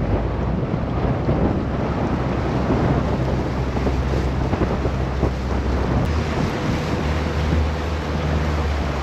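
Outboard motor of a small aluminium boat running steadily underway, a low even hum, with wind buffeting the microphone and water rushing along the hull.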